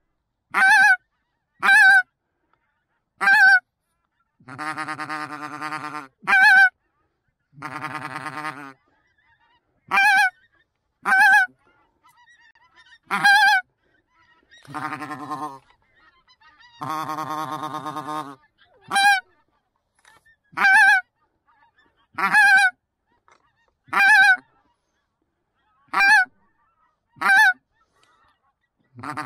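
Goose call blown close by, sounding short, sharp honks every second or two, mixed with a few longer, lower, buzzing notes, to call flying geese in to the decoys.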